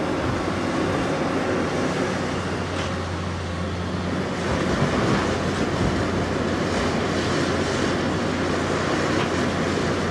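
Doosan DX530 crawler excavator's diesel engine running at a steady drone while the upper structure swings round, with a few faint clanks.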